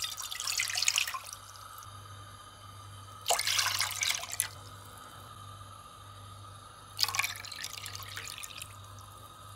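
Three cupfuls of water poured one after another from a bowl into a dark cooking pan, each pour a splash of about a second, over a low steady hum.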